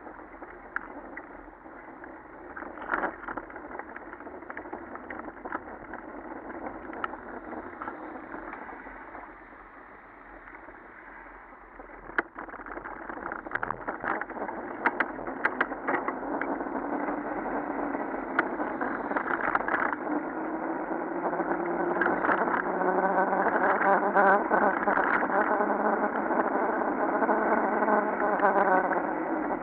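Wind and riding noise on a mountain-bike rider's action-camera microphone, with scattered knocks and rattles as the bike goes over bumps and kerbs. In the last several seconds a motor vehicle's engine rises steadily in pitch, then stops just before the end.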